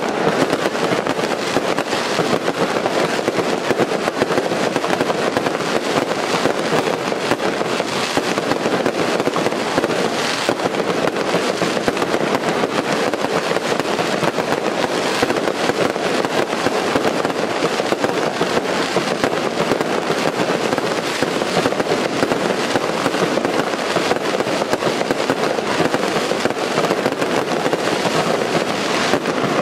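Daytime fireworks going off in an unbroken barrage: dense, continuous crackling of firecrackers and crackling stars, with a few louder bangs standing out.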